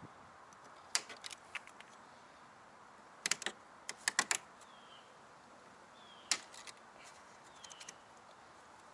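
Scissors snipping through plastic cable ties, sharp snaps and clicks in small clusters: about a second in, from about three to four and a half seconds in, and again between six and eight seconds in.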